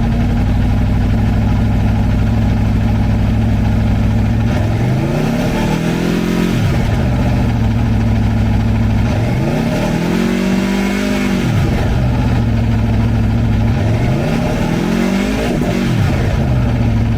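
2016 Aprilia Tuono V4 1100 RR's 1077cc V4 engine idling, then revved three times: about four seconds in, again around nine seconds in with a longer held rev, and once more near the end. Each time the pitch climbs and drops back to a steady idle.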